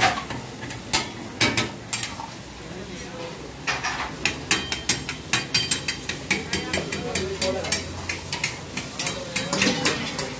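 A flat metal spatula scraping and clanking irregularly against a steel karahi wok as chicken karahi is stirred, with the curry sizzling in the pan. The clanks ease off briefly about two seconds in, then come thick and fast again.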